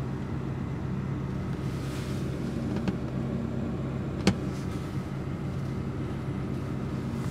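Off-road 4x4's engine running steadily, heard from inside the cab, with a sharp knock about four seconds in and a lighter one about a second before it.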